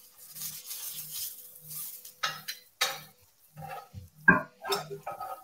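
A kitchen knife being sharpened: short scraping strokes of the blade, about two a second, in a steady rhythm.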